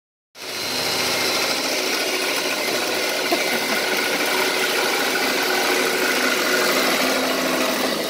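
Cordless drill running steadily as a long thin bit bores through a wooden wall stud. It starts a moment in and runs without a break.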